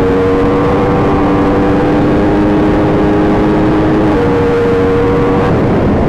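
Yamaha R1 inline-four sportbike engine running under way and holding a steady note. Near the end the note breaks up as the revs change.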